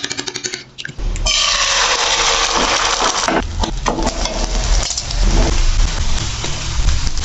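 A metal spoon clinks as it mixes beaten egg with onion and green chilli in a ceramic bowl. About a second in, egg mixture hits a hot oiled frying pan and starts sizzling. The sizzle is strongest for the first two seconds, then settles to a steadier frying sizzle.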